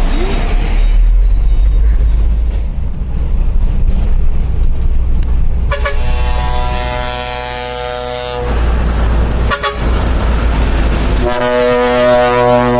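Dump truck's trumpet air horn sounding twice, each a held chord of several steady tones lasting a couple of seconds: the first about six seconds in, the second near the end. A low rumble runs underneath, with a short knock between the two blasts.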